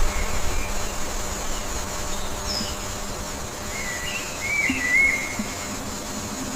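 A bird's warbling whistled call, a phrase of a second and a half about four seconds in, with a short high note just before it, over a steady hiss of background.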